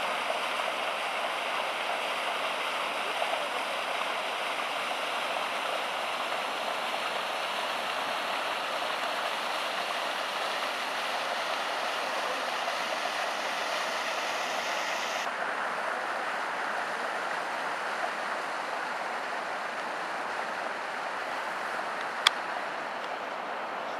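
Water rushing and splashing over rocks, a steady noise that turns duller about fifteen seconds in. A single sharp click near the end.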